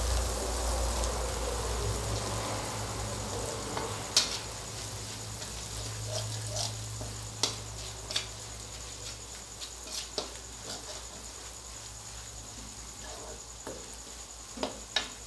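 Ready-made curry paste frying in oil in a steel wok, a steady sizzle that slowly quietens, while a spatula stirs it and now and then clicks and scrapes against the wok.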